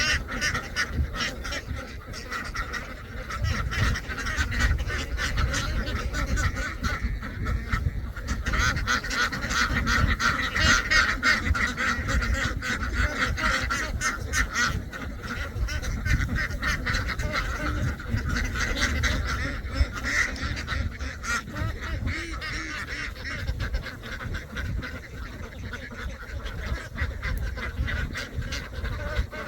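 A large flock of domestic ducks quacking and calling continuously, many voices overlapping into a steady chatter that swells for a few seconds around the middle.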